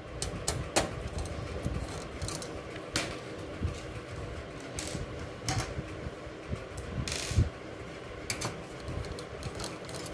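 Hand screwdriver driving screws through a sheet-steel PC cabinet's drive bay into a hard disk: scattered small metallic clicks and scrapes at an uneven pace.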